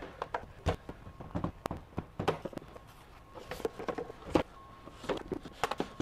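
Irregular light knocks and clicks from a plastic cordless wet/dry shop vacuum and its hose being handled, with its motor off.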